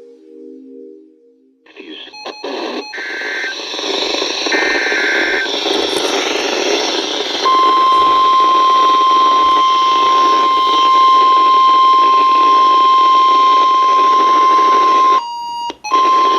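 NOAA Weather Radio warning received through static hiss. A few short data bursts come first, then the steady single-pitch warning alarm tone (about 1050 Hz) sounds for about eight seconds. The tone drops out briefly near the end and comes back. The alarm marks a severe thunderstorm warning broadcast.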